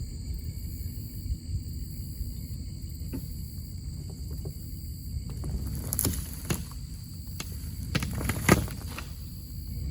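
A four-wheel-drive vehicle's engine running low and steady in four-low while it pulls a tree out of the ground. Several sharp cracks from about the middle on, loudest near the end, as the roots tear loose.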